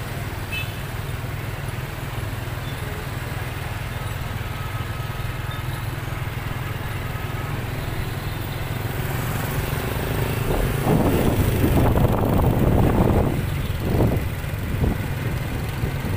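Motorbike and scooter traffic on a town street: a steady low engine rumble that swells louder for about three seconds around two-thirds of the way through, with a few shorter swells after.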